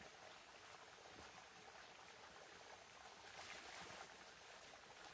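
Near silence: faint steady outdoor hiss.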